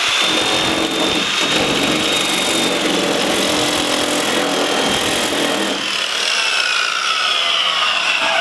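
Angle grinder fitted with a shrinking disc, spinning against a steel door panel: a high motor whine over the scraping hiss of the disc rubbing the metal, friction-heating a high spot to shrink it down. The whine drops in pitch over the last couple of seconds as the tool winds down.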